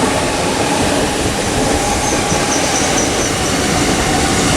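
Great Western Railway Class 800-series Intercity Express Train moving at the platform: steady train noise, with a faint, broken high-pitched whine from about two seconds in.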